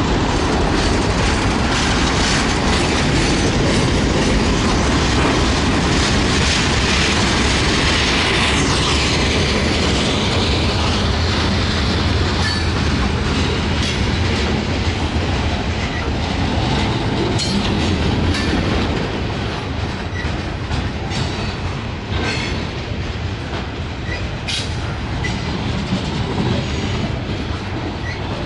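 Norfolk Southern freight train rolling past close by: a steady rumble of steel wheels on the rails as boxcars and lumber-loaded flatcars go by. Sharp clicks come at intervals, and the train grows a little quieter in the second half.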